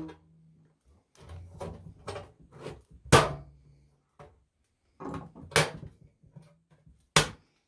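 Thin metal top of a large Civil Defense food can being bent and peeled back by hand along its cut edge: a run of sheet-metal crinkles and clicks, with three sharper snaps about three, five and a half and seven seconds in.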